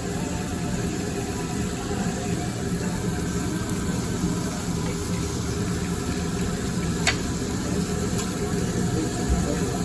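Steady hiss over a low hum from a hibachi griddle table, with a single sharp click about seven seconds in.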